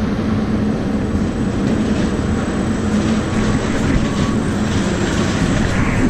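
Truck and potato-unloading conveyor running steadily, a constant mechanical drone with a low hum.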